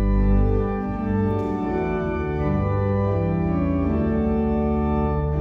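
Church organ playing slow sustained chords over a deep bass, the chords changing every second or so.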